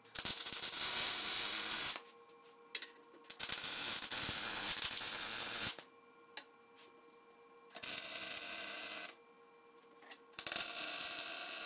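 Wire-feed welding arc crackling and sizzling in four short welds, each lasting one to two and a half seconds with pauses between, as it joins 1/8-inch steel plate.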